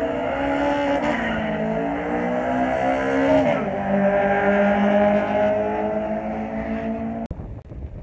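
Race car engine running hard at high revs, its pitch wavering and climbing, then dropping sharply about three and a half seconds in before holding steady. The engine sound breaks off suddenly near the end.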